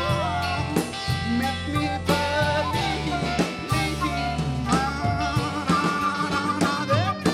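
A live rock band playing: a flute carries the melody with a wavering vibrato over electric bass, electric guitar and a drum kit.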